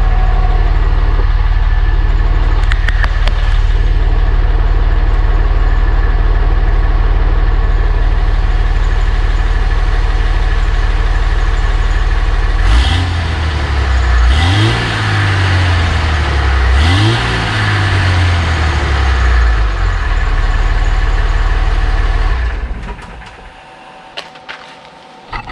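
Dodge pickup's Cummins turbo-diesel straight-six idling steadily on its stock exhaust. The tailpipe has rotted off, so the exhaust exits at the muffler under the truck. Partway through it is revved twice, rising and falling each time, settles back to idle and stops near the end.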